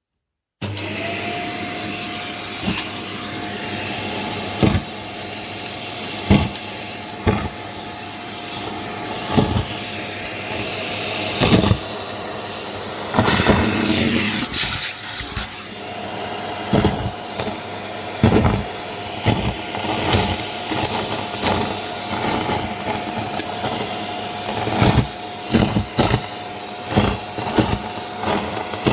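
Vacuum cleaner running with a steady motor whine, punctuated by frequent knocks and bumps as it is worked across the floor. The whine cuts in abruptly just under a second in, and about halfway through it briefly fades out before coming back.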